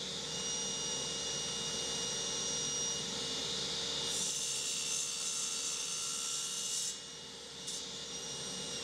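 Table saw running with a steady whine while a crosscut sled carries a small block of African blackwood through the blade. From about four to seven seconds in, a brighter hiss joins the whine as the blade cuts through the hardwood.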